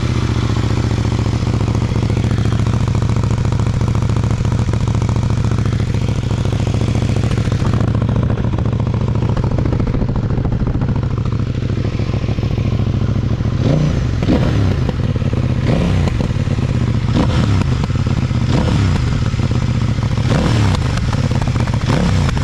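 A 2024 CFMOTO 800NK Advanced's parallel-twin engine idling steadily through its stock exhaust. About halfway through it is revved in around six quick throttle blips, with pops as the revs fall.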